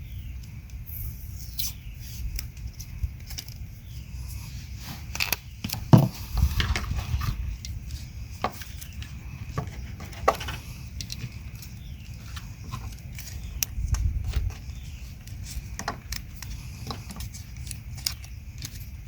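Scattered clicks, rustles and crackles of hands working on wire connections at a fuel pump connector, splicing and wrapping them in electrical tape, over a low steady rumble. The sharpest click comes about six seconds in.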